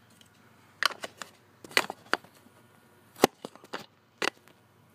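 Handling noise from a phone camera being set down and propped up on a tabletop: a string of short, sharp knocks and taps at uneven spacing, the loudest about three seconds in.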